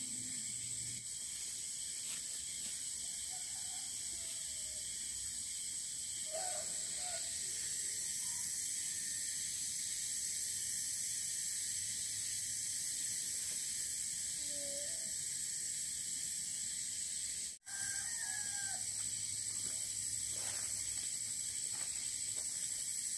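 Outdoor daytime ambience: a steady high-pitched insect drone with a few faint, short animal calls scattered through it. The sound drops out for a split second about seventeen seconds in.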